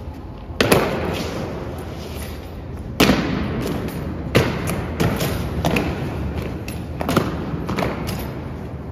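Honour guards' boots striking a stone floor in the changing of the guard: single heavy footfalls every second or two, each ringing on in a long echo.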